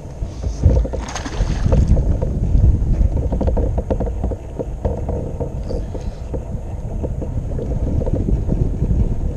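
Wind noise on the microphone, with water splashing and lapping against a kayak's hull as a hooked trout thrashes beside the boat.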